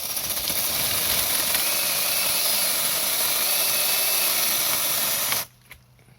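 VioleWorks 88VF mini battery-powered chainsaw running at full speed with a steady, loud whir. About five and a half seconds in it stops dead all at once, the cut-out fault of this saw.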